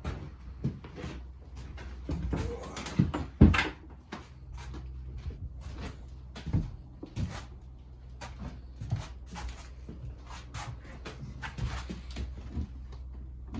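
Scattered knocks and clunks of the rebuilt engine and parts being handled in a workshop, with one loud thump about three and a half seconds in, over a steady low hum.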